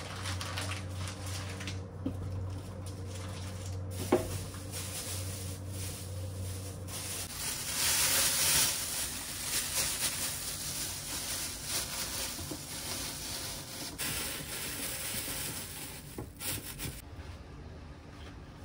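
Kitchen tidying sounds: a plastic bag rustling and crinkling as it is handled, with scattered small clatters and a sharp knock about four seconds in. A low steady hum stops about seven seconds in.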